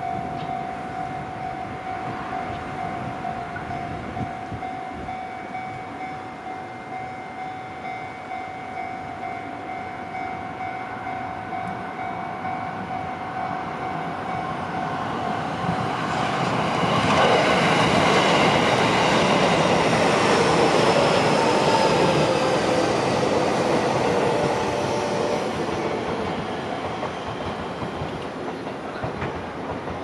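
Japanese level-crossing warning bell ringing steadily with the barriers down. About halfway through, an electric commuter train arrives and passes over the crossing, and the noise of its wheels on the rails drowns out the bell for several seconds before easing off.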